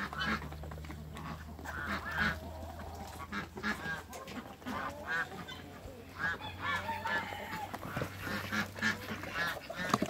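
Domestic geese honking many times in short, repeated calls, with a low steady hum underneath.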